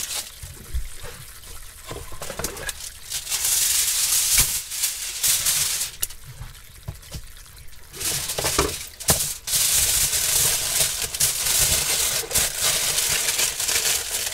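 Aluminium foil crinkling and rustling as it is torn off and folded around takeaway boxes, in two long spells with a lull between, over water bubbling in a hot pan.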